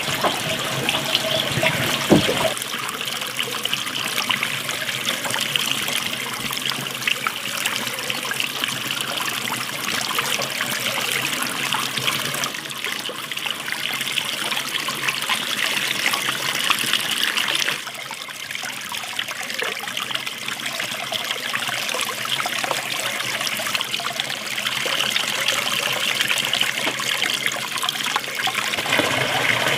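Water running from an outdoor tap and splashing into a metal basin while vegetables are rinsed by hand. A short knock about two seconds in.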